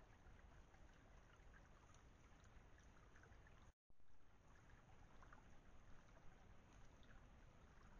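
Near silence: faint steady hiss from a trail camera's microphone, broken by a brief total dropout about four seconds in.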